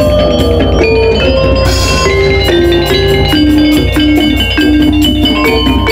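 Javanese gamelan ensemble playing: saron-family metallophones (demung and saron) struck with wooden mallets in a steady run of ringing notes, over a low sustained bed from the rest of the ensemble.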